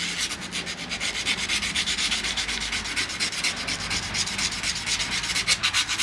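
Rapid back-and-forth rubbing by hand, about five strokes a second.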